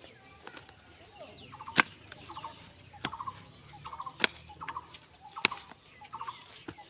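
A short, rattling animal call repeating about every half second from about a second and a half in, with sharp knocks about every second that stand out above it.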